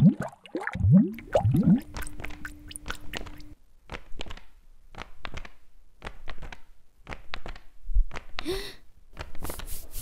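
Water sounds: a run of irregular wet squelches, drips and small plops, several of them rising quickly in pitch in the first two seconds, with a brighter splash near the end.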